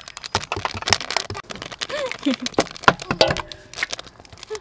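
Crinkling and crackling of small plastic seasoning sachets being squeezed and shaken out over a steel mixing bowl, a quick irregular string of sharp clicks.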